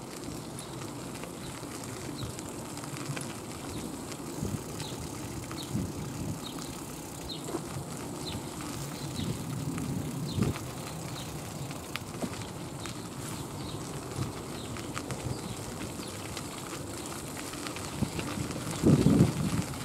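Outdoor ambience with wind buffeting the microphone in irregular low rumbles, and a bird calling in short, high chirps every second or so. A stronger gust hits the microphone near the end.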